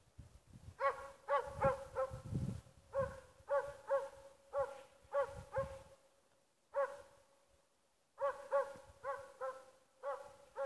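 Jämthund (Swedish elkhound) bay-barking (ståndskall) at a moose it is holding at bay: a steady run of barks at about two a second, broken by a pause of a couple of seconds midway.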